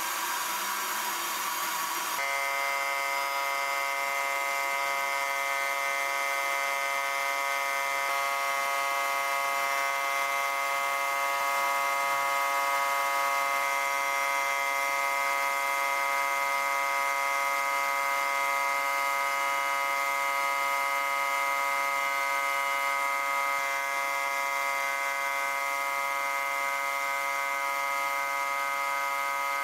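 Sandblasting in a blast cabinet: a steady hiss from the blast, with a constant buzzing hum that starts suddenly about two seconds in and holds steady.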